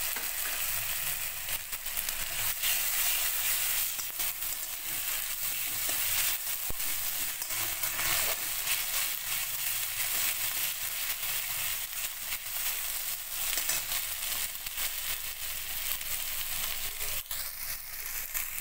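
Onion, tomato and ginger–green chilli paste sizzling steadily in hot oil in a metal kadai. A metal spatula stirs and scrapes through it, with frequent short scraping clicks against the pan.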